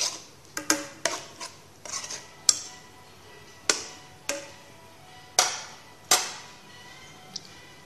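A spoon stirring thick spinach and urad dal in a pan, knocking against the pan with sharp clacks about every half-second to second, growing sparser toward the end.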